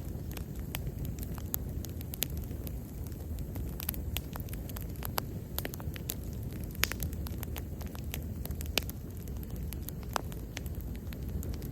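Wood bonfire burning: a steady low rumble of flames with frequent irregular crackles and pops, two sharper pops near the middle.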